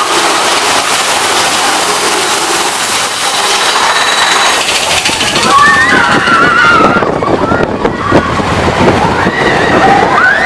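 Mine-train roller coaster running with a steady rushing noise. About halfway through, the riders start screaming and cheering as the cars clatter along the track, and they scream again near the end.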